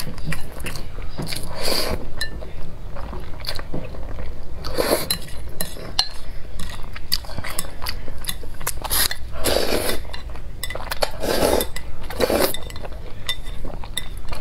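Chopsticks clinking against a glass bowl while noodles are stirred and lifted, with several slurps of noodles.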